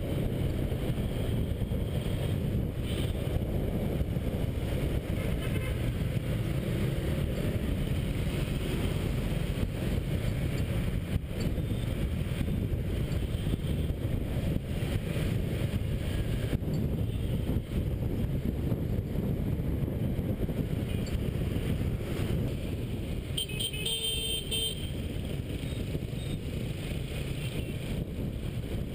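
Wind rumbling on the action camera's microphone, mixed with a motorbike engine running and the surrounding scooter and car traffic while riding through the city. A short vehicle horn beeps late on.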